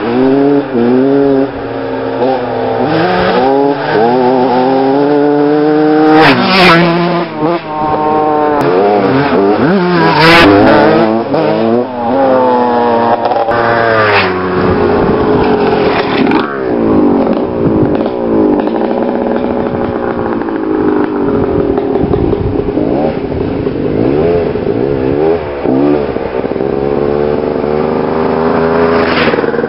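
Vintage two-stroke motocross bikes revving hard as they ride past one after another on a dirt track. The engine pitch climbs and drops again and again with each throttle blip and gear change, loudest as a bike passes close.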